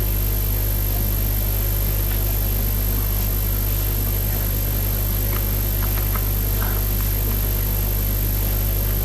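Steady low electrical hum with hiss, unchanging throughout, with a few faint clicks around the middle.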